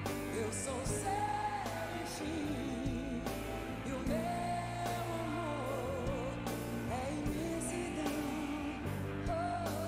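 A woman singing a pop ballad live with a band: long held notes with vibrato over steady chords and drum hits.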